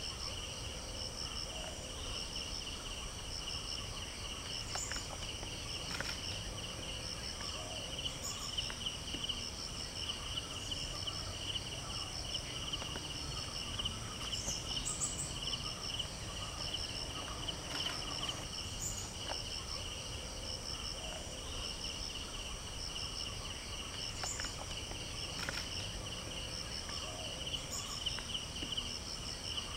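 Steady chorus of insects trilling in fast pulses, a high trill with a higher one above it, with a few short sharp clicks now and then.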